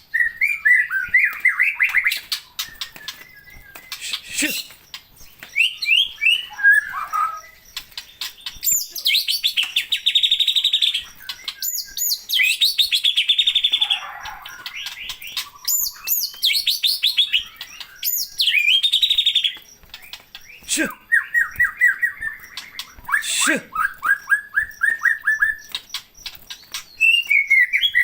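A songbird singing in long phrases of rapid, repeated chirps and trills, pausing briefly between phrases, with a few sharp clicks among them.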